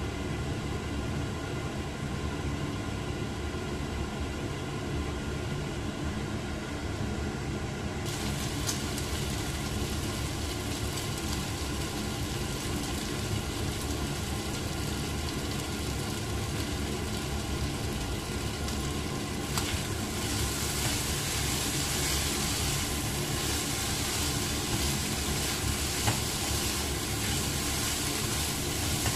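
Carrots, potatoes and meat cooking in a non-stick wok over a steady low machine hum. The pan's hiss turns bright and sizzling about eight seconds in, as frying begins with the lid off, and grows louder again after about twenty seconds.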